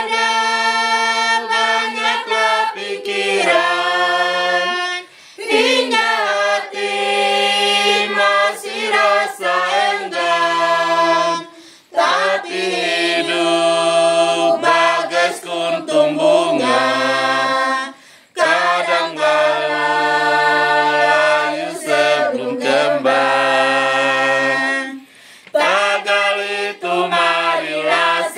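A small group of women's voices singing an Indonesian Christian hymn together, unaccompanied, in about five phrases separated by short breath pauses.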